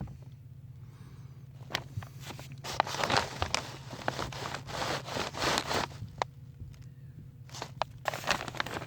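Rustling, scraping and clicks of a person crawling and shifting about in a crawl space, heaviest from about three seconds in to six seconds and again near the end, over a steady low hum.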